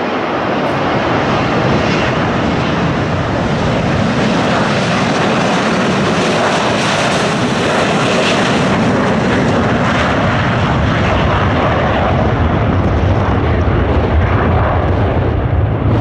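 McDonnell Douglas MD-83 jetliner's two rear-mounted Pratt & Whitney JT8D turbofans at takeoff power during the takeoff roll: a loud, steady jet roar. It is brightest as the plane passes closest about eight seconds in, then turns to a deeper rumble as the jet speeds away down the runway.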